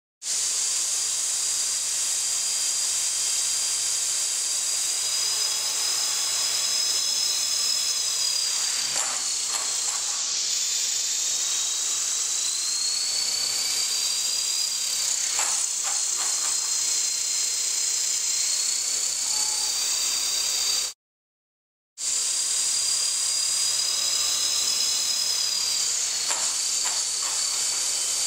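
Small RC helicopter hovering, with a new metal rotor head and blades: a steady high motor whine over rotor hiss, its pitch drifting gently up and down with the throttle. The sound cuts out for about a second roughly three-quarters of the way through.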